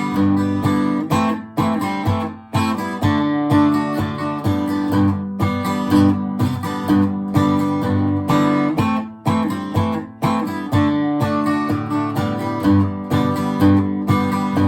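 Music: an acoustic guitar strumming chords in a steady rhythm, with no singing.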